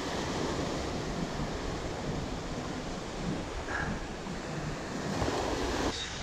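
Small waves breaking and washing up over the sand in shallow surf, a steady wash of water.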